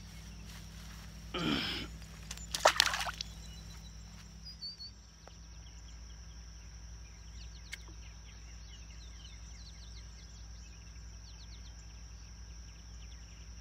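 A small bass dropped back into the lake with a splash about two and a half seconds in, after a brief shorter rustle. Faint bird chirps follow over a steady outdoor background.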